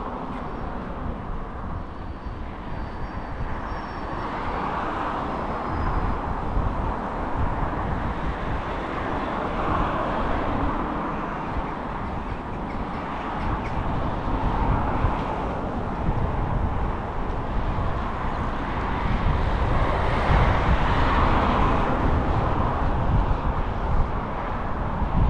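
City street ambience: traffic noise with a low rumble, swelling and fading several times as vehicles pass.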